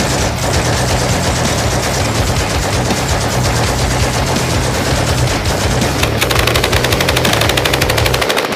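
M60 machine gun firing long automatic bursts, then about six seconds in an M249 SAW firing a faster, more even stream of shots.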